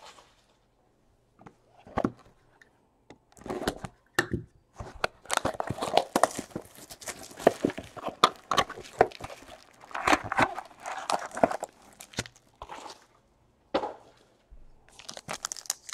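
Plastic wrap torn and crinkled off a cardboard trading-card box, then the box opened and its packs pulled out, with scattered clicks and knocks of cardboard between the crinkles.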